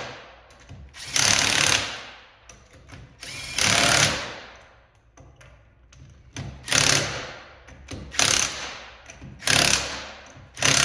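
Impact wrench running in about five short bursts, each under a second, tightening a car wheel's lug nuts one after another in a cross pattern.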